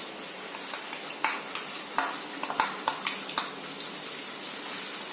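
Chopped onions sizzling in hot oil in a pan, with a steady hiss. A metal spoon or spatula clicks and scrapes against the pan several times between about one and three and a half seconds in.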